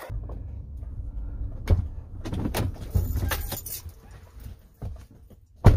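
Knocks and rattles of gear being handled and loaded into a car, over a low rumble, with one loud sharp knock near the end.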